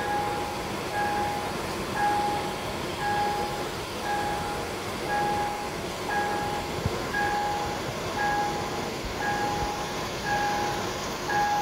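Railway level-crossing warning signal sounding a repeated electronic tone, about one short beep per second, over the steady rumble of the stopped train and the waiting traffic.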